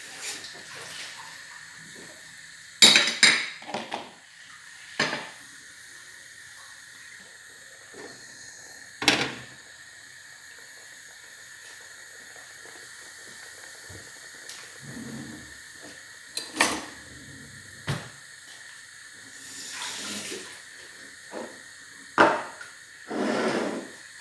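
Pots-and-pans clatter: scattered knocks and clinks against an aluminium saucepan of milk on a gas stove, over a steady faint hiss. Near the end comes a longer noise lasting about a second.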